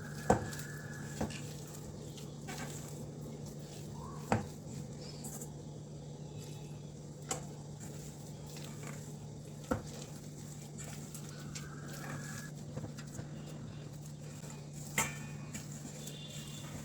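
Spoon knocking against a mixing bowl about six times, a few seconds apart, while thick cake batter is mixed, over a steady low hum.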